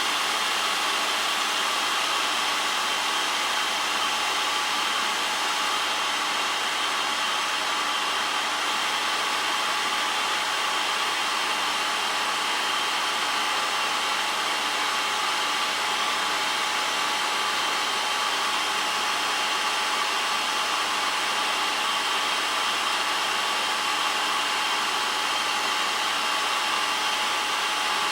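Drill grinding machine running steadily: an even motor-and-grinding-wheel whir with a steady whine over it.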